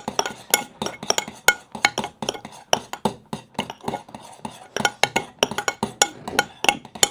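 Spoons clinking and scraping against bowls as slime mixture is stirred fast by hand, an irregular run of several clicks a second with no let-up.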